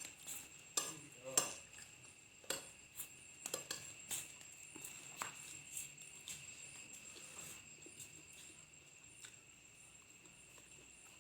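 A spoon clinking and scraping against a plate while fried rice is eaten: a run of sharp clinks in the first half, thinning out after about five seconds. A steady high-pitched tone runs underneath throughout.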